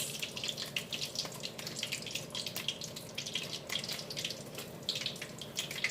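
Burrito frying in hot vegetable oil in a pan: a steady sizzle made of many small crackles.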